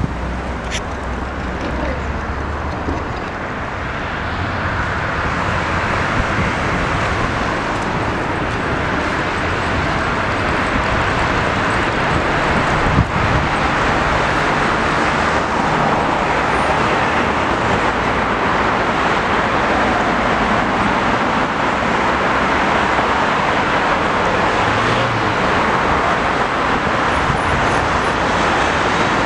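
Continuous busy city background noise, a steady even wash that grows louder a few seconds in.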